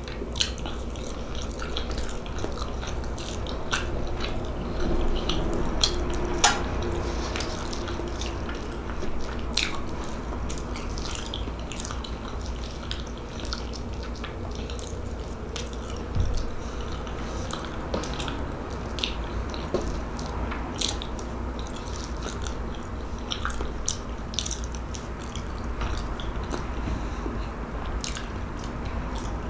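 Close-up chewing and mouth sounds of a person eating soft meatloaf and mashed potatoes, with many small sharp clicks scattered throughout, over a steady low hum.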